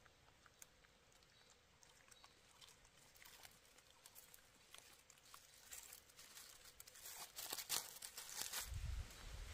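Dry leaf litter crackling and rustling as feet move over it: faint scattered crackles at first, busier toward the end, when a low rumble also comes in.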